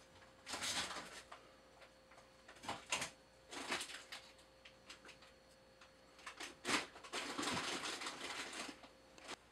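A small tap turned by hand in a T-handle tap wrench, cutting a 3-48 thread in brass: irregular bursts of scraping and rasping with a few light clicks as the wrench is worked.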